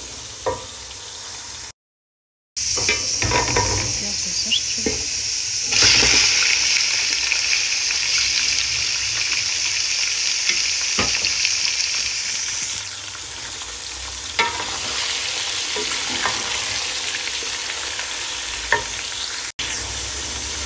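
Onions and then cubed raw beef liver sizzling in hot oil in a metal pot, stirred with a wooden spoon that knocks against the pot now and then. The sizzle grows louder about six seconds in and eases off after about thirteen.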